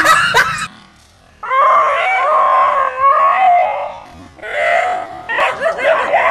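A dog crying out in fright in several high, wavering bouts, a howling, screaming yowl, as it grapples with a stuffed toy tiger. The cries stop for about a second near the start, then a long cry follows and shorter ones near the end.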